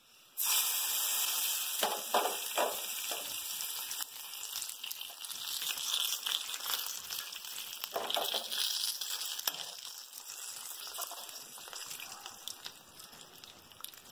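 Hot coconut-oil tempering of mustard seeds, curry leaves and dried red chillies poured into a pan of curry, sizzling from about half a second in and fading over the last few seconds, with a few clicks of a spoon as it is stirred in.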